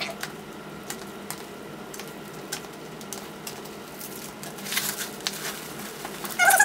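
Scissors cutting through a duct-tape dummy leg: faint, irregular snips and tape crinkling, a little louder about four to five seconds in. A cat starts meowing right at the end.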